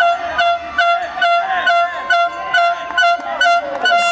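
A horn holding one steady note over a regular beat of about three knocks a second, with voices shouting over it.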